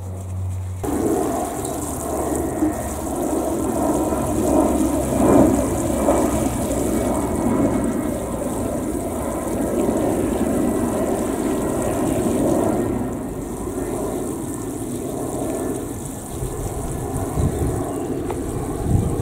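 Water falling steadily from a watering can's rose onto freshly planted bean plants and dry soil, watering them in.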